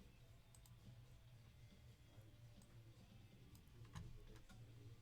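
Near silence with a low steady hum and a few faint clicks, the loudest just before four seconds in.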